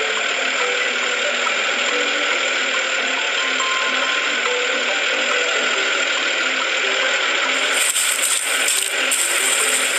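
Cartoon bulldozer sound effect: a steady mechanical rattling and ratcheting, with a light tune of short notes underneath. Near the end a brighter, irregular clattering joins in.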